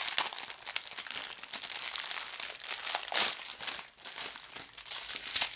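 Crinkly plastic packaging of diamond-painting drill bags being handled and unwrapped, a dense crackling rustle with a brief lull about four seconds in.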